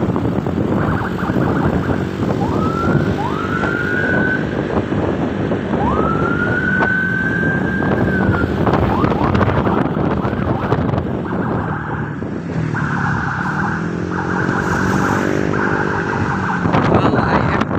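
Road noise from riding a motor scooter in traffic: steady wind and engine sound. Twice in the first half a siren-like whoop rises and holds a high note, and in the second half a high tone switches on and off several times.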